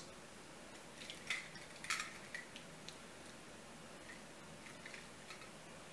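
Faint clicks and light knocks from two die-cast Lightning McQueen toy cars being handled and turned over in the hand, the clearest about a second and two seconds in, over quiet room tone.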